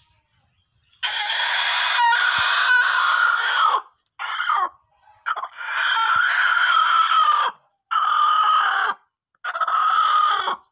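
Broody hen giving five harsh, drawn-out shrieking growls as a hand reaches under her to uncover her eggs: the defensive call of a sitting hen disturbed on the nest. The first and third calls are the longest, two to three seconds each.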